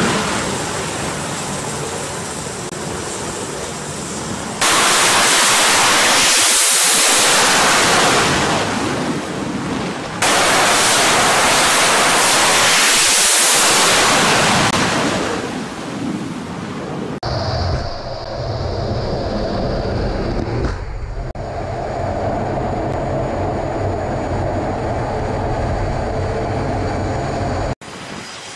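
Carrier-based F/A-18 jet engines running at high power on the flight deck during launches and recoveries: a loud, rushing jet noise that swells and fades across several shots that cut abruptly. In the later part it settles into a steadier, lower engine drone.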